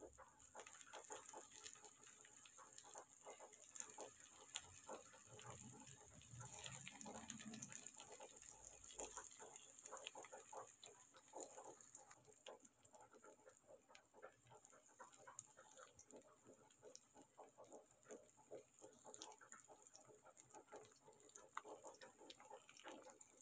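Chicken nuggets shallow-frying in a little hot oil in a pan: faint, irregular crackling and popping over a soft hiss.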